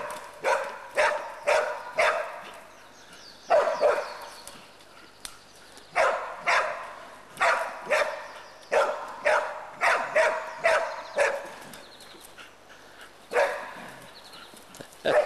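Pig-hunting dogs barking at a wild pig held at bay: runs of sharp barks, about two a second, broken by short pauses.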